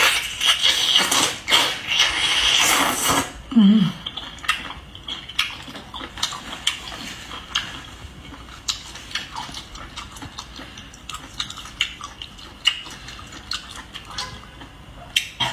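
Close-up eating sounds of seafood: wet slurping and chewing, with many sharp clicks and taps of utensils and shells. The longest slurping stretch is in the first three seconds.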